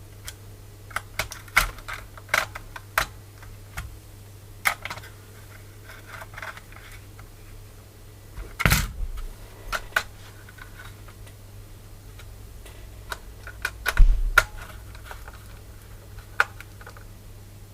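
Scattered clicks and light knocks of a screwdriver and small metal parts as the screws holding a keyboard's PCB and plate in its case are tightened, with two louder knocks about nine and fourteen seconds in.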